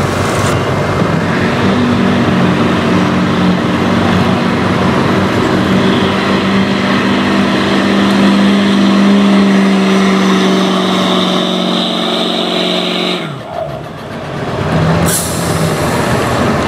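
Ford Super Duty pickup's diesel engine running hard under load as it drags a weight-transfer pulling sled through dirt. The steady engine drone climbs slightly in pitch. It drops away sharply about thirteen seconds in, and a quieter, lower engine note follows near the end.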